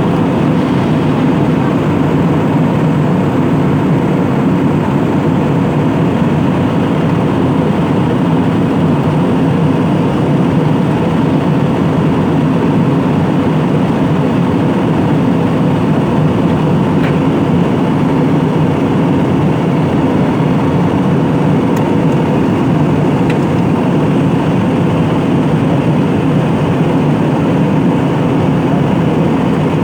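Airliner cabin noise in flight: the steady, even rush of the engines and airflow heard from inside the passenger cabin.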